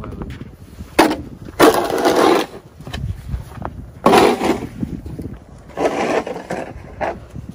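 Red plastic snow shovel scraping and pushing snow across a driveway, in about four separate noisy strokes of under a second each.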